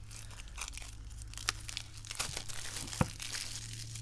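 Oracle cards and their paper or wrapping being handled: crinkling and rustling with small clicks and two sharp taps, one about a second and a half in and one about three seconds in, over a low steady hum.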